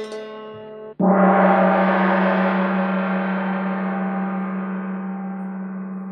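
A single gong stroke about a second in, closing the music: one strike with a deep tone and many overtones that rings on and slowly fades.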